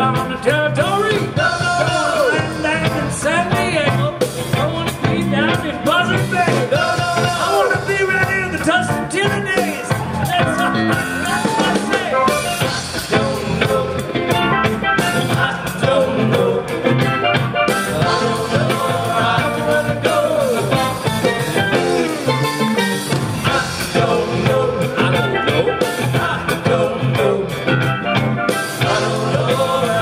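Live rock band playing an upbeat song, with electric guitar, drums and a man singing at the microphone.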